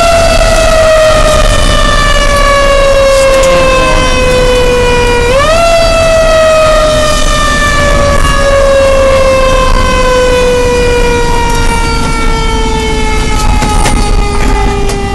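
Fire engine's siren heard from inside the cab, running as a mechanical wail: the tone falls slowly in pitch, is spun up quickly to a high wail about five seconds in, then winds down slowly and weakens near the end. The truck's engine rumbles low underneath.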